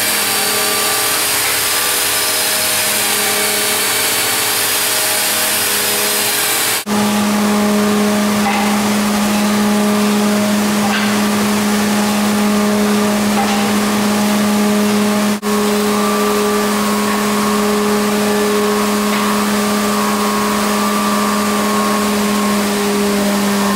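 Workshop machinery running steadily: a loud motor drone at one held pitch over a rushing, hissing air noise. It breaks off for an instant and comes back slightly lower about seven seconds in, and breaks again about fifteen seconds in.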